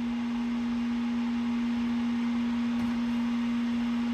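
Ultrasonic parts cleaner running with carburetor parts in its bath: a steady hum on one pitch over an even cavitation hiss.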